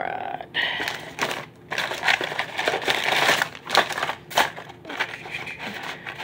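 Plastic packaging crinkling and crackling as fishing lures are pulled out of a cardboard subscription box, an irregular run of rustles and sharp clicks.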